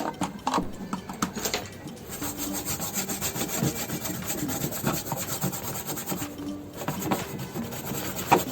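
A brush scrubbing back and forth over a motherboard's circuit board in rapid, uneven strokes, cleaning leftover debris from around the spot where the RAM slot was removed.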